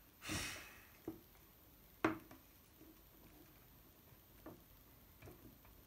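Faint sticky squishes and clicks of slime being pressed into a small plastic mould with the fingers, a few separate clicks with the sharpest about two seconds in. A short hissing swish sounds at the very start.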